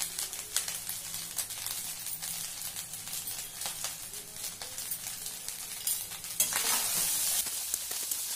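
Fried rice sizzling in a hot pan as a perforated steel spatula stirs it, with scraping and quick clicks of the spatula against the pan. The stirring gets louder about six and a half seconds in.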